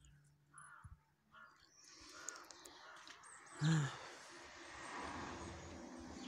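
Crows cawing: a few short calls, then one loud, harsh caw about three and a half seconds in, over a rushing noise that swells in the second half.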